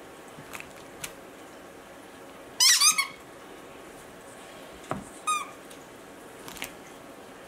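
Squeaky dog toy being squeezed: a quick run of sharp, high squeaks about two and a half seconds in, then one short squeak a couple of seconds later.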